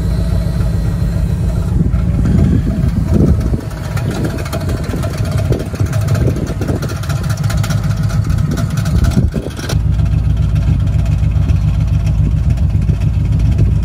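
Engine of a red Sierra wrecker idling, with an uneven stretch from about four seconds in to about ten seconds in before it settles back to a steady idle. The owner suspects a noise in it comes from the clutch going out or an idler pulley.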